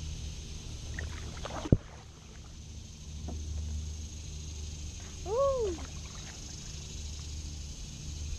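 Kayak paddling on a still creek: a steady low rumble with faint paddle and water sounds. There is a sharp click about two seconds in, and about five seconds in a single short pitched call that rises and then falls.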